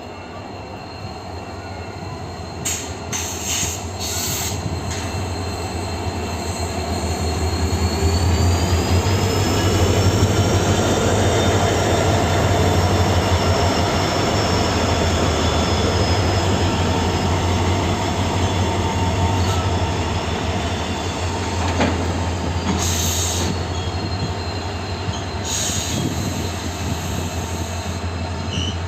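Two EMD diesel locomotives, a WDG4D and a WDG4, running together with a steady, loud low hum that builds to its loudest about ten seconds in and then eases slightly. A thin high whine climbs in pitch about eight seconds in, holds, and drops back near the end, with a few brief high hissing bursts around it.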